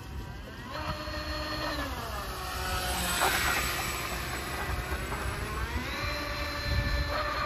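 Whine of the RC boat's twin Roxxy 1960kv brushless outrunner motors driving TFL water jets: it rises in pitch, holds and drops back twice as the throttle is opened and eased. Between the two runs, about three seconds in, a louder hiss of water and spray as the boat passes close.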